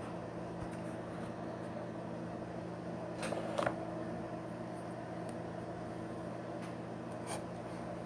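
Steady low background hum with a few level tones, like a fan or other mechanical drone in the room. Brief clicks or handling noises come about three and a half seconds in and again near the end.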